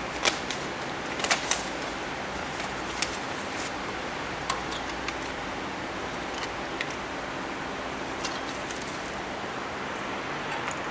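Scattered sharp clicks and taps of ink-tube connectors being handled at a UV flatbed printer's printhead, the loudest group in the first second or two, over a steady hiss.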